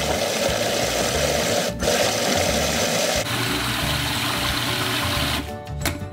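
Countertop food processor motor running, blending a thick tofu ricotta with sautéed mushrooms and greens. It cuts out for an instant about two seconds in, its sound loses some high hiss about halfway, and it stops near the end.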